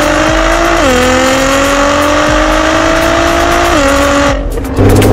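Nissan GT-R R35's twin-turbo 3.8-litre V6 with an Armytrix turbo-back valvetronic exhaust, accelerating under load. The engine note climbs steadily and drops sharply at two upshifts. Near the end the sound briefly drops out and returns as a lower engine note.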